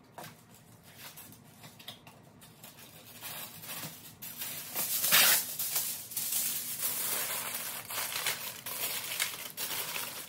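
Aluminum foil crinkling and being pressed as it is wrapped around an animal skull. Quiet handling at first, getting louder about a third of the way in, loudest about halfway.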